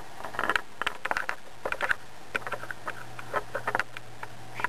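A computer's CD-ROM drive reading a newly inserted disc: scattered light clicks and ticks, with a steady low hum from the spinning disc that grows stronger about two seconds in.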